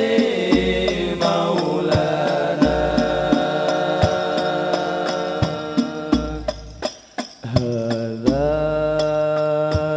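Banjari sholawat: a male voice singing a devotional melody over rebana frame drums struck in a steady interlocking rhythm, with deep bass drum strokes. The music drops away briefly about seven seconds in, then the voice comes back in on a held note.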